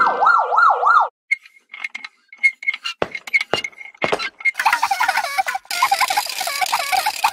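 Cartoon ambulance siren wailing in fast rising-and-falling sweeps for about the first second, then cutting off. After it come scattered clicks and short high beeps, and in the last few seconds a dense, warbling noisy sound.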